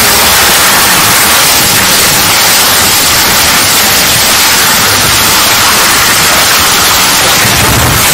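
Loud, steady hiss like TV static, strongest in the high range, with a rougher low rumble underneath.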